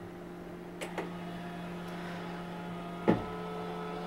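Koolatron mini vending machine's dispensing mechanism humming steadily after its button is pressed, releasing a can, with a small click about a second in and a knock about three seconds in.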